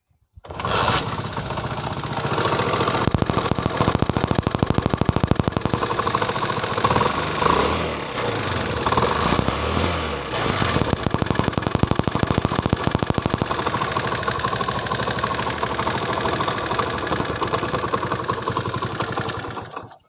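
Honda CD-70 single-cylinder four-stroke engine idling with a fast tick-tick from the top end, which the mechanic puts down to loose tappets (too much valve clearance). The engine speed rises and falls a little around the middle.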